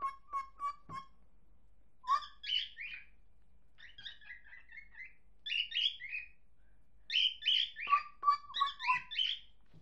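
Pet cockatiel chirping: a quick run of short repeated notes at the start, then several bursts of warbled, chattering phrases with pauses between them.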